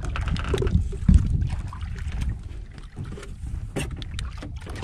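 Wind rumbling on the microphone aboard a small fishing boat, with small clicks and knocks as fishing tackle is handled and one low thump about a second in.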